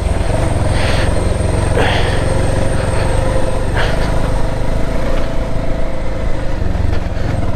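Bajaj Pulsar 220F single-cylinder engine running steadily as the motorcycle is ridden along a trail, with three brief rushes of noise about 1, 2 and 4 seconds in.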